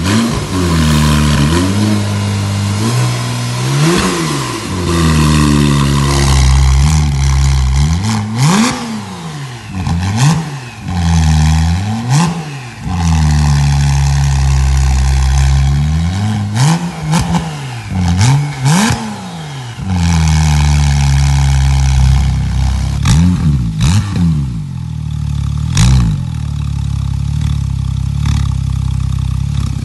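Porsche 911 Carrera (991.2) 3.0-litre twin-turbo flat-six revved again and again at a standstill through an EVOX ValveTronic stainless-steel exhaust, dropping back to idle between each rev. The exhaust valves are closed at first, then open, giving a louder, hoarse, metallic tone.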